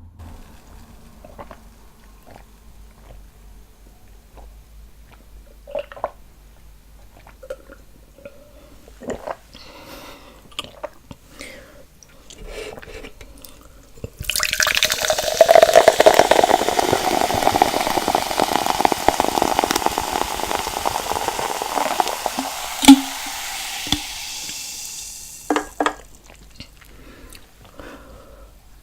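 A stream of liquid running for about ten seconds, starting suddenly about halfway through and tapering off; before it, scattered small clicks and taps.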